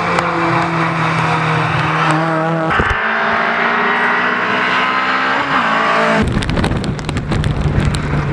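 Rally cars' engines running hard at high revs on a stage, with the pitch shifting as they rev and pass, and a little tyre squeal. The sound changes abruptly twice, about three and six seconds in.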